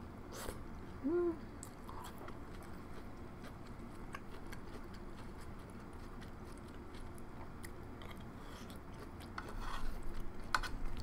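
Close-up chewing and mouth sounds of someone eating cheesy corn, with soft scattered clicks and smacks. About a second in there is a brief hummed "mm", and the chewing gets busier near the end.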